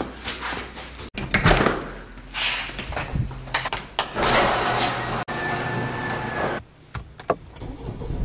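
A string of short household sounds: footsteps and clicks, then door-like opening and closing noises, and a steady electronic beep lasting about a second and a half a little past the middle.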